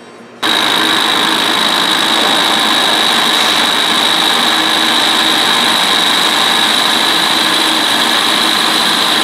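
Metal lathe running with a chainsaw cylinder spinning in its chuck, taking a skim cut on the cylinder base: a loud, steady machine noise with a piercing high whine over it. It starts abruptly about half a second in.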